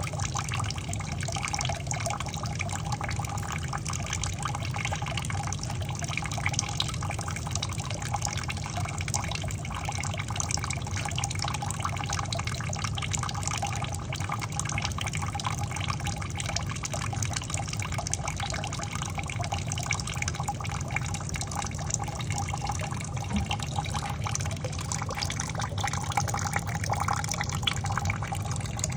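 Water running and splashing steadily out of a steam boiler's skim port as the boiler is skimmed, floating oil and impurities carried off with the overflowing surface water. A steady low rumble runs underneath.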